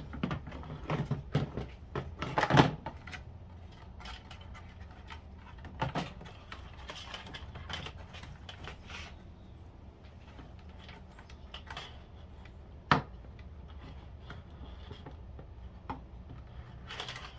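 Hands handling a plastic computer fan and console casing: scattered clicks and knocks of plastic, a cluster of louder ones in the first few seconds and one sharp knock about two-thirds of the way through.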